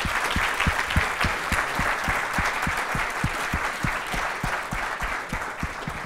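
Audience applauding, a dense patter of many hands clapping, with a steady beat of nearer claps about three a second.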